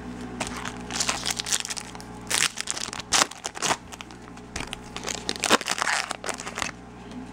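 Foil wrapper of a Bowman Chrome baseball card pack crinkling and crackling in irregular bursts as it is handled and torn open by hand.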